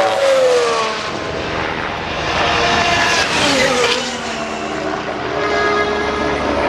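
Formula One cars' turbocharged V6 engines passing at speed on the circuit, the high engine note dropping in pitch as each car goes by: one right at the start and another about three seconds in, with more engine noise from cars further round the track.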